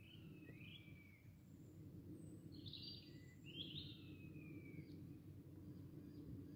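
Faint birds calling over a low, steady background hum: a few whistles falling in pitch, with two louder, rougher chirps about three and four seconds in.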